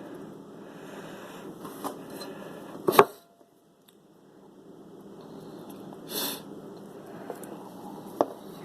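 Handling noises from working glue and foam around a speaker's edge: a few light clicks and knocks, the loudest about three seconds in, and a short hissy rustle about six seconds in, over steady low room noise.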